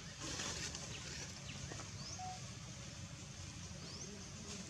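Outdoor background noise: a steady low rumble with a few short, high rising chirps, about two seconds in and again near the end.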